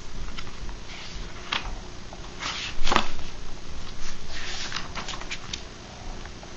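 Pages of a paperback book being turned and pressed flat by hand: paper rustling and sliding, with a sharp tap about three seconds in.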